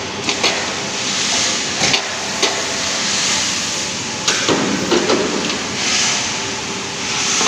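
Factory-floor noise around a JG23-40 mechanical punch press working aluminium scaffold parts: a steady loud hiss with several sharp metallic knocks, and a louder clatter about four and a half seconds in.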